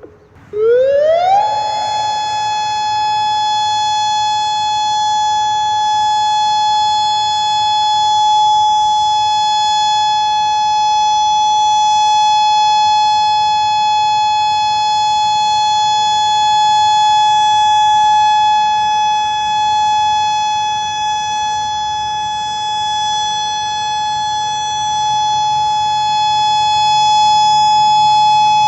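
Outdoor civil defense tornado warning siren winding up in pitch over about a second and a half, then holding one steady, loud tone, the tornado warning alert sounded as a test.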